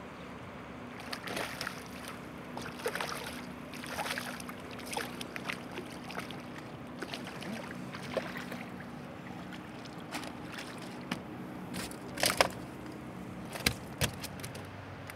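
A striped bass being fought and landed in an aluminum boat: water sloshing and small clicks and knocks of handling over a steady low hum, with two louder sharp knocks near the end as the fish comes onto the metal deck.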